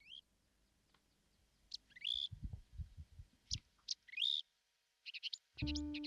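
Scattered short bird chirps, several of them rising in pitch, with a few soft low thumps in the middle. A pitched musical tune starts near the end.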